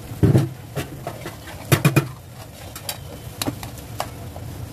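Slotted metal spatula stirring and scraping thick tomato masala in a metal pot, with a few knocks and clinks of the spatula against the pot: one loud one just after the start, a cluster near two seconds in, and single ones later.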